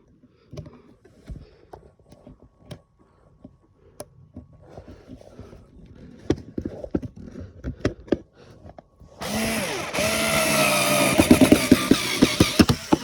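Scattered handling clicks and knocks, then about nine seconds in an electric screwdriver starts and runs for about three and a half seconds with a steady motor whine. It is driving a screw into the wood of a drawer front to make a hole for a handle.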